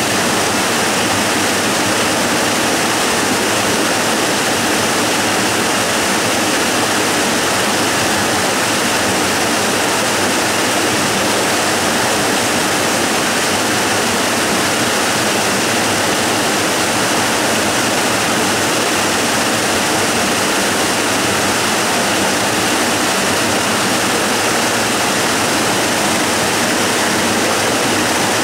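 Waterfall: a steady, unbroken rush of water pouring over rock, more hiss than rumble, with no change in level.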